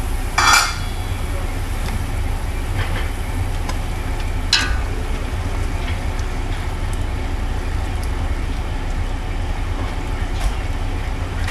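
Chopsticks stirring a stainless steel pot of boiling soup, with light clicks against the pot over a steady low rumble. A short clatter comes about half a second in.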